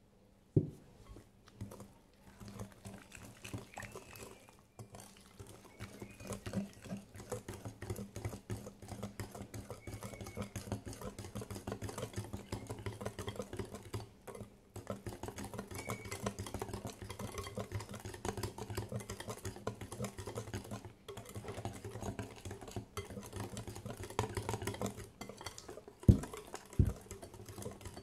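Wire whisk beating a thick cake batter by hand in a glass bowl: a quick, steady run of small clicks and taps from the wires against the bowl, with a few louder knocks near the start and near the end.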